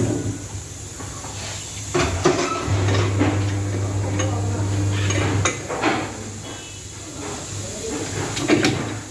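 Metal clunks and clatter from a tyre wheel being mounted on a wheel balancer and its clamp nut worked onto the shaft, with sharp knocks now and then. A steady low hum starts a little under three seconds in and stops about three seconds later.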